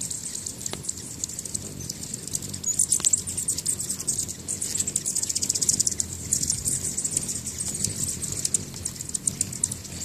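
Hummingbirds at a nectar feeder: a low buzzing wing hum under a continuous run of rapid, high-pitched chittering, which swells a few times.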